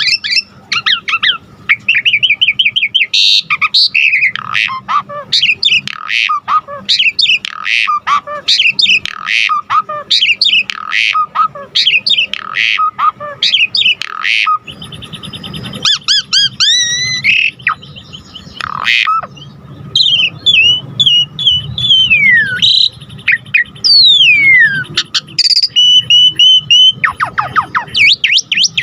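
Pied starling (jalak suren) singing non-stop in full voice: a dense run of varied chirps, whistles, trills and sweeping falling glides, its song filled with calls mimicked from other birds.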